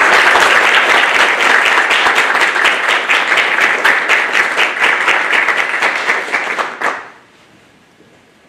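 Audience applauding, a dense clatter of many hands clapping that stops fairly abruptly about seven seconds in.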